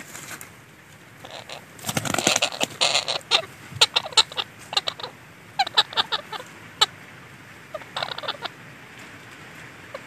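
Parakeets calling at a nest hollow: a rapid flurry of sharp, high calls about two seconds in, then a string of single calls and a short burst near the end.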